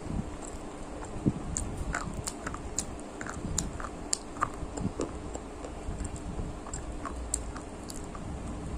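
Close-up biting and chewing of a crunchy brown stick snack, heard as sharp, irregular crackles and crunches. The loudest is a bite about a second in.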